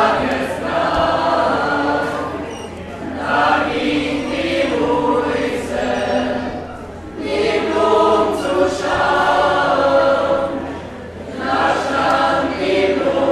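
A choir singing together in sustained phrases of a few seconds each, with short pauses between phrases.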